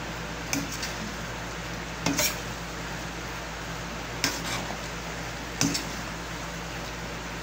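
Metal ladle stirring pork and peppers through thick sauce in a stainless steel frying pan. It clinks against the pan four times, about every one and a half seconds, over a steady sizzle.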